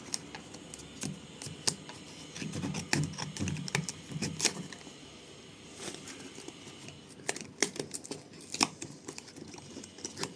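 Hands handling a phone charger and its packaging: scattered sharp clicks and small knocks with bursts of crinkling and rustling, busiest a few seconds in and again near the end.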